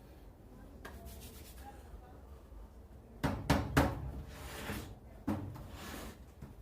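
Handling noise: three quick knocks on a hard surface, then rubbing or scraping, and another single knock near the end.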